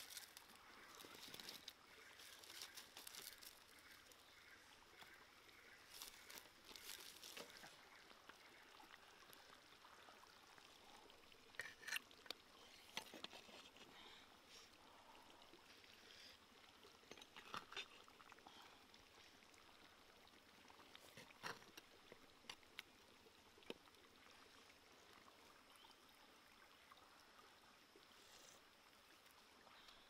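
Faint trickle of running water, broken by a few short, sharp clinks and scrapes of a spoon against a clay bowl as curry is dished out.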